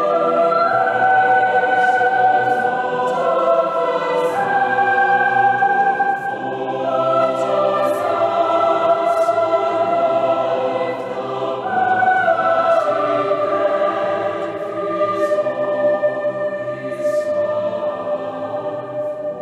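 Mixed college choir singing a sacred choral piece in held chords that move from one to the next every second or two, with sharp sibilant 's' consonants now and then.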